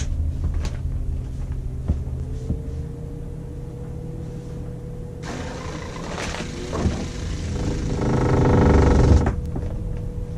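12-volt diaphragm water pump running as it pressurizes the newly plumbed water lines under the sink, a steady hum with a buzz that builds to its loudest around eight seconds in and cuts off sharply about a second later.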